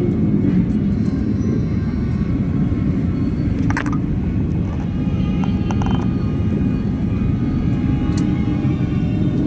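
Dense crowd of motorbikes moving through the street, a steady mass of engine rumble, with a few brief horn toots over it about four and six seconds in.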